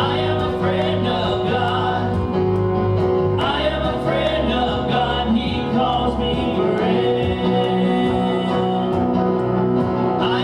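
Gospel song with singing over a strummed acoustic guitar and a steady beat.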